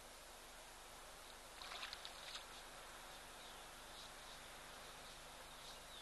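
Near silence with a faint steady hiss. A brief soft splash comes about a second and a half in, and faint short chirps of distant birds recur.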